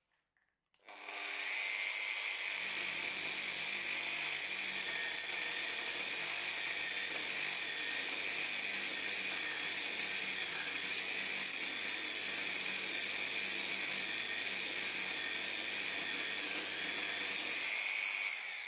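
Angle grinder switched on about a second in and running at full speed with a steady high whine. From a couple of seconds in its disc works the wood, adding a low rumble. Near the end it is lifted off and spins down.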